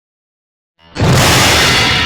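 Hanna-Barbera cartoon 'Kablam' hit sound effect: a sudden loud crash about a second in, followed by a metallic ringing that fades slowly.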